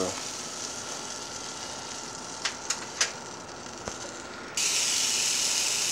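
A few light clicks and a knock, then about three-quarters of the way through a steady sizzle starts suddenly as a raw venison loin is laid on the hot, buttered plate of a George Foreman grill.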